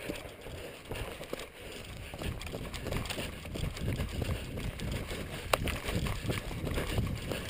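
A person running over dry leaf litter on a forest floor: quick, uneven footfalls and rustling, with a single sharp click about five and a half seconds in.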